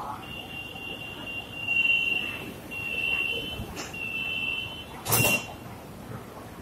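Door-closing warning beeps of a BTS Skytrain train or platform doors: one high steady tone sounding in three long pulses and a short fourth, then a brief loud rush of noise as the doors shut.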